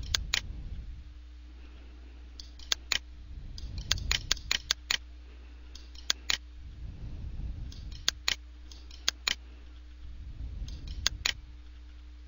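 Computer mouse clicking, mostly in quick pairs spread every second or two, over a faint steady electrical hum.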